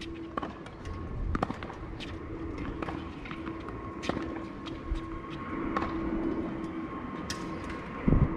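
Scattered sharp clicks of tennis balls being struck and bouncing, over a steady low hum, with a dull thump near the end.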